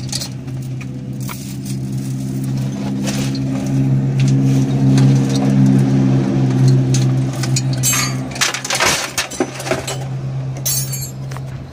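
Hand chain hoist's metal chain rattling and clinking as a car engine is lowered on it, over a steady low hum that stops about eight seconds in, after which clinks come thick and fast.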